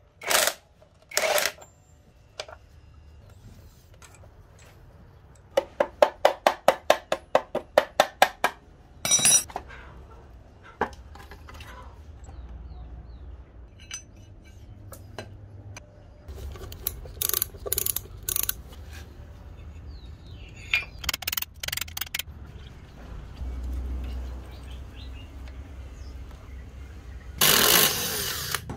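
Metal tools and parts clinking and knocking during hand work on a motorcycle. A few seconds in comes a run of about a dozen quick ringing taps, about four a second. Scattered ticks follow, then a louder clatter near the end.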